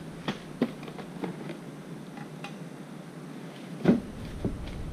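Parts and packaging being handled on a work surface: scattered light clicks and knocks, with one louder thump about four seconds in.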